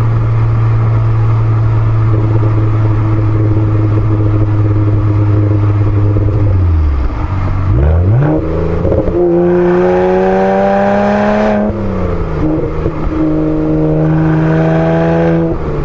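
BMW 135i's N54 twin-turbo inline-six running through an aFe Mach Force XP cat-back exhaust with a straight pipe, engine not yet warmed up. It is held at steady raised revs, drops back toward idle about seven seconds in, is revved up again and held higher, then eases down a little and holds.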